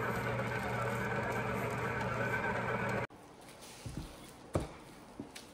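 Electric stand mixer motor running steadily as its dough hook kneads bread dough; the hum cuts off abruptly about three seconds in. After it, a few soft knocks of a wooden rolling pin on a wooden board.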